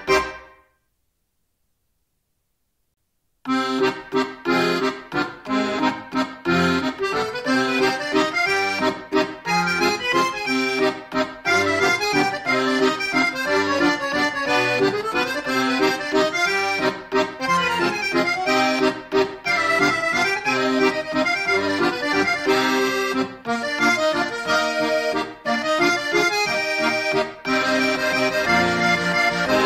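Instrumental background music. It fades out right at the start, leaves about three seconds of silence, then starts again and plays on.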